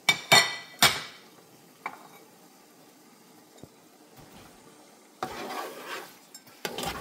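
Three sharp, ringing clinks of a metal spoon against the cooking pot within the first second. About five seconds in come scraping and stirring sounds in the thick pepper stew, with another burst near the end.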